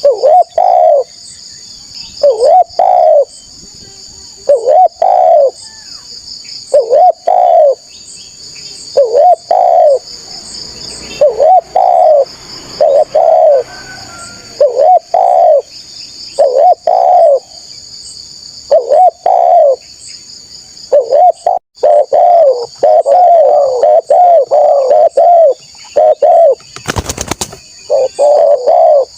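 Spotted dove (tekukur) cooing over and over in short phrases, about one every two seconds at first, then in a quicker run of coos. A steady high-pitched hiss or buzz runs underneath, and a brief sharp noise comes near the end.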